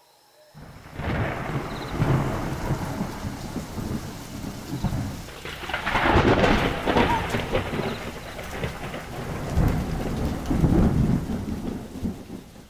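Rain and rolling thunder: a steady wash of rain with long rumbles of thunder that swell about a second in, again around six seconds in and around ten seconds in, then fade out near the end.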